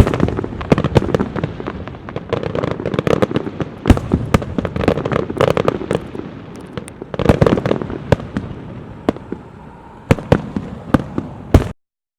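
Fireworks display: a quick run of sharp bangs and crackling pops, thickening into dense volleys about three to five seconds in and again around seven seconds, then cutting off suddenly near the end.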